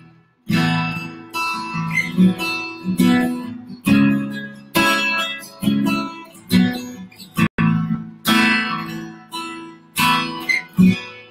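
Acoustic guitar strumming chords, about one strum a second, each chord ringing out and fading before the next. The sound cuts out for a split second about seven and a half seconds in.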